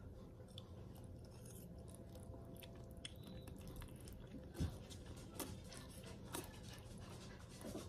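Faint chewing of a first mouthful of spicy instant noodles: soft, wet mouth sounds and scattered small clicks, with one short louder smack about four and a half seconds in.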